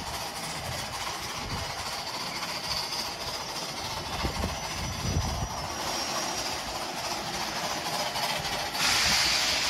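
Steam locomotive 473, a Durango & Silverton K-28 Mikado, standing in the roundhouse and hissing steam steadily. Near the end the hiss suddenly gets much louder as more steam is let off.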